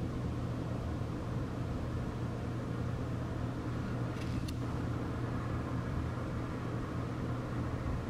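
Steady low rumble of distant road vehicles and heavy machinery, heard from high above the street.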